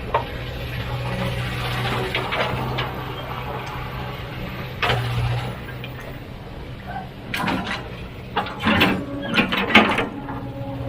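Heavy equipment engine running with a steady low drone. From about seven seconds in, a run of loud knocks and clatter.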